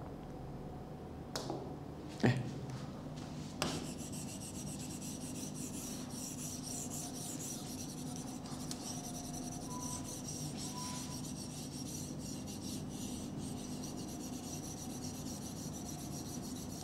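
Pen scratching and rubbing across the glass screen of a touchscreen smart board in many short handwriting strokes, after a few sharp taps on the board in the first few seconds.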